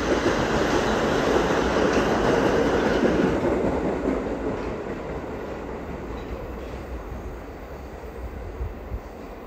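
New York City subway train running past on the tracks, loud for about the first three seconds, then fading steadily as it moves away.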